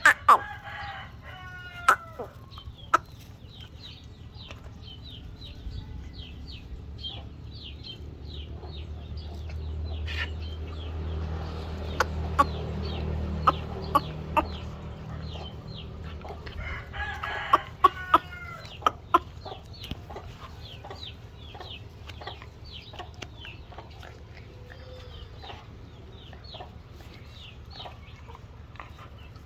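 Farm animal calls: many short, high, falling chirps throughout, with two longer calls, one at the very start and one about seventeen seconds in. Several sharp knocks and a low hum are heard underneath.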